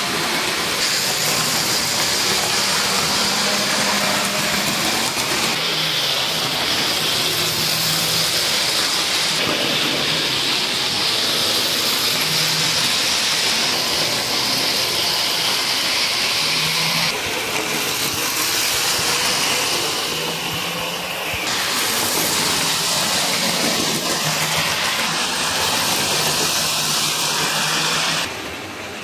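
Electric model trains running on a layout's track: a steady whirr of small motors and wheels on rail. It shifts in tone several times and drops in level near the end.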